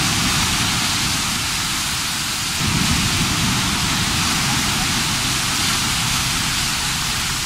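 Surf washing up a beach: a steady rushing of breaking waves and foam, swelling slightly about two and a half seconds in.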